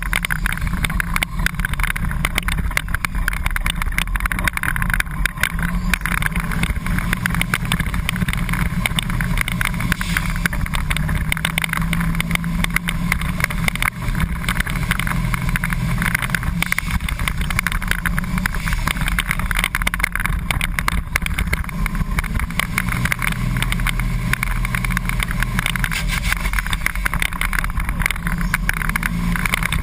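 A flat-nose school bus's engine running loud and steady as heard from inside the cab while it races, its low drone shifting in pitch now and then, over a constant rattle of the bus body.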